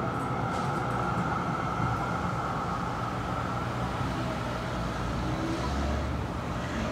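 Steady vehicle and road traffic noise, an even rumble and hum with no sharp events.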